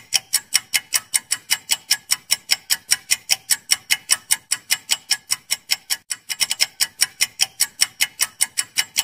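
Clock-ticking sound effect marking a quiz countdown timer: fast, even ticks, about five a second, with a brief stumble about six seconds in.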